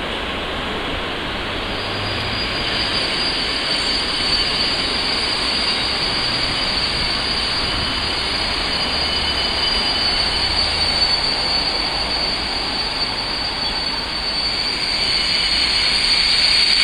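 Passenger coaches of an arriving train rolling slowly past, with a steady high-pitched squeal from the wheels as the train brakes to a stop. The noise grows louder near the end.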